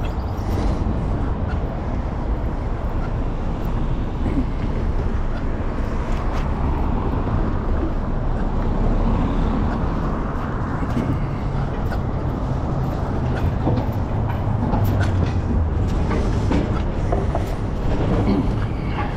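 Steady low outdoor rumble of road traffic and wind on a body-worn microphone, with a few scattered light clicks as a bicycle is wheeled along.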